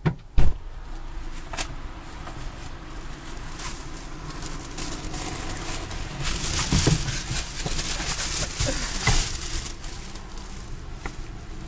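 Handling noise inside a parked car: a sharp thump about half a second in, then rustling and crinkling as someone shifts in the driver's seat and handles things in his lap, loudest in the middle.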